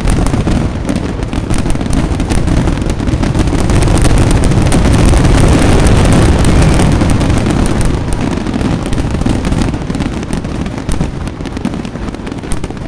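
Fireworks going off in a dense, rapid barrage, overlapping booms and crackles with no gap between them, typical of a grand finale. The barrage is loudest in the middle and eases a little towards the end.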